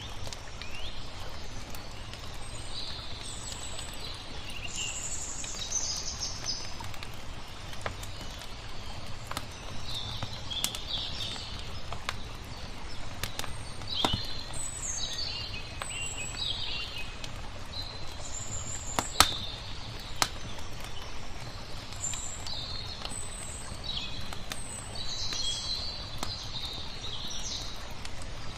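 Small birds chirping in short, high calls throughout, over a wood fire crackling with scattered sharp pops, the loudest about two-thirds of the way through. A steady low wash of flowing water lies underneath.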